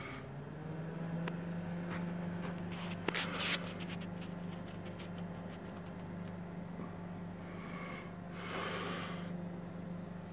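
Running desktop PC: cooling fans and water-cooler pump humming steadily with a low tone that steps up slightly in pitch just after the start. A few sharp clicks come about three seconds in, and a brief rush of air noise around eight seconds.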